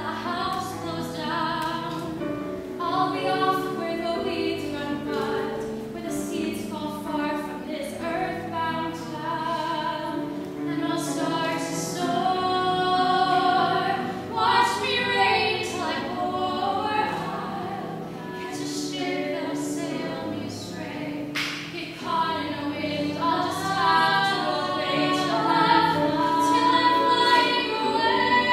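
Two girls singing a duet together, their voices rising and falling through sustained sung phrases.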